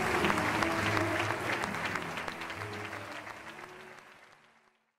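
Audience applause mixed with music, the clapping and notes fading steadily and dying away to silence near the end.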